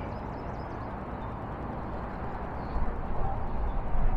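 Outdoor riverbank ambience: a steady hiss with wind rumbling on the camera microphone, growing stronger and gustier about three seconds in, and a few faint high bird chirps.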